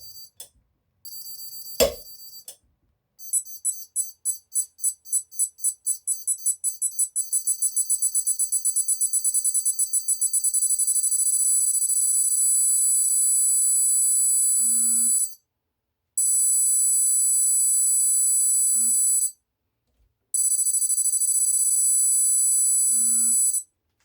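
Digital torque wrench beeping as torque builds: the high-pitched beeps come faster and faster until they merge into one continuous tone at the set torque. The tone stops, then sounds twice more as long steady tones. Two sharp clicks sound in the first two seconds.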